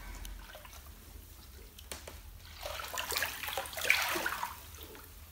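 Bathwater in a bathtub, splashing and pouring as bath salts go into it. The noise swells about two and a half seconds in and fades about two seconds later.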